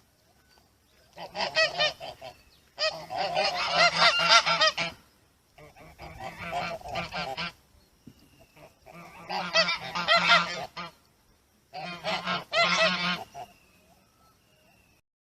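Chinese goose honking loudly in five bouts of rapid, repeated honks, each bout lasting about one and a half to two seconds, with short pauses between them.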